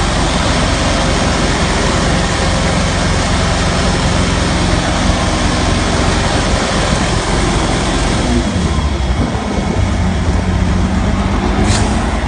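Carpet-cleaning truckmount running: a loud steady hiss over an engine hum. About eight seconds in, the hiss thins out and the engine note changes, and a short high hiss sounds near the end.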